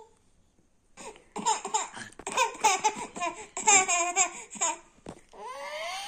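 A toddler laughing in a run of quick bursts for about four seconds, then a long, drawn-out vocal sound rising in pitch starting near the end.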